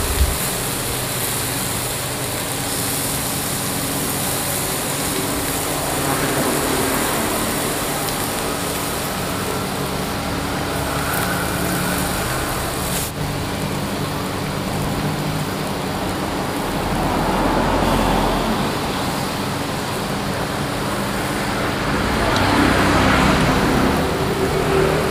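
Pork and fat sizzling on a hot tabletop grill-hotpot (ຊີ້ນດາດ / หมูกระทะ): a steady hiss with a low hum beneath it.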